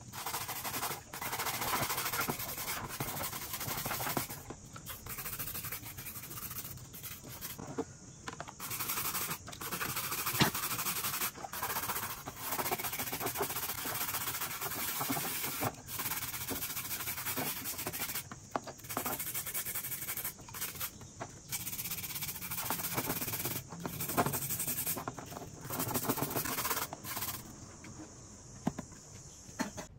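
A small wire brush scrubbing a rusty perforated metal grille in a tub of soaking liquid: bristles scratching over the wet metal in repeated strokes, broken by short pauses.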